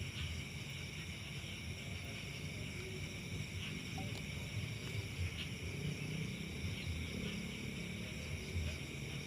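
Steady high-pitched trilling of night insects such as crickets, with an uneven low rumble underneath.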